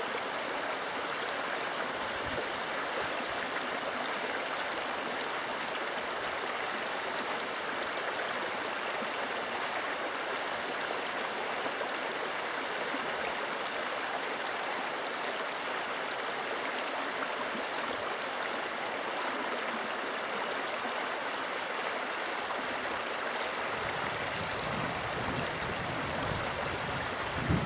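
Shallow, rocky river running over stones, a steady rush of water. A low rumble joins it near the end.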